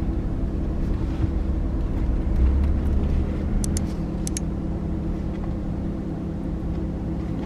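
Engine and road noise heard inside a pickup truck's cabin as it drives slowly, a steady hum with a low rumble that swells for a couple of seconds around the middle. A few faint high clicks come about four seconds in.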